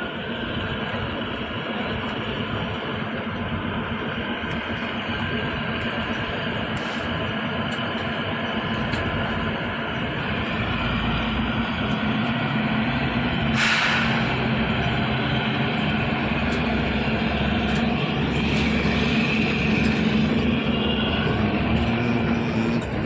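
Kalka–Shimla narrow-gauge toy train running, a steady rumbling noise that slowly grows louder, with a brief sharp hiss about halfway through.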